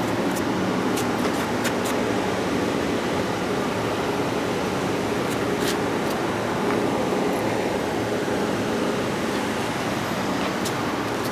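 Electric arc welding on pipe: a steady hiss with a scattering of short, sharp crackles over a low hum.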